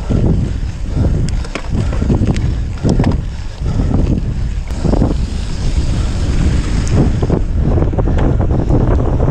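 Wind buffeting the microphone of a handlebar-mounted camera while a bicycle rolls over a loose gravel road, with tyre crunch and frequent knocks and rattles from bumps.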